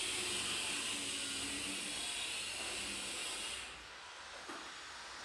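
Steady hiss of background noise, whose higher part drops away about three and a half seconds in.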